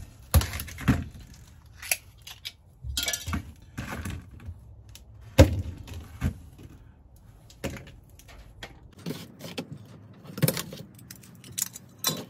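Knife splitting wax candles on a wooden table: irregular sharp knocks and taps of the blade and wax against the wood, with a crunchy scraping stretch about three seconds in as the wax is cut and crumbles, and pieces of wax clattering down.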